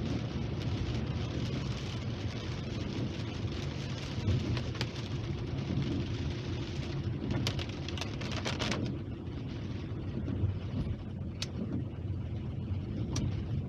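Steady car road noise heard from inside the cabin while driving in rain, with rain on the windscreen and the wipers sweeping across the glass. A cluster of sharp clicks comes about seven to nine seconds in, and a few single ticks follow near the end.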